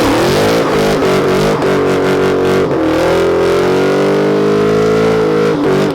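Ford Mustang engine revving hard. The engine speed rises and falls a few times, holds high for a couple of seconds, then drops just before the end.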